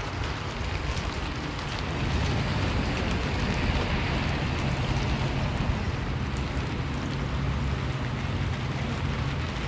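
Steady rain on wet pavement, an even hiss with a heavy low rumble underneath. From about four seconds in a low steady hum joins.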